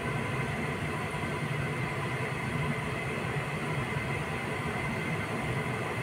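Steady machine hum with a faint high whine above it, like a fan or appliance running.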